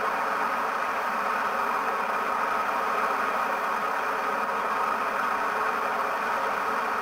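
Steady rush of a river in flood, a constant even wash of moving water.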